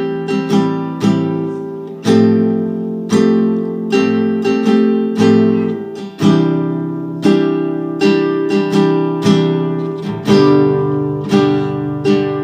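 Acoustic guitar strumming a rhythm through a four-chord progression of A minor 7, F add9, C add9 and G. The added sevenths and ninths give the chords a brighter, more open colour.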